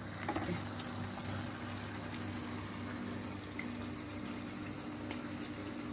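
Meat in sweet soy sauce gravy simmering in a wok over a gas flame: a steady low bubbling and hiss with a faint hum underneath. The gravy has not yet cooked down to the point where the oil separates.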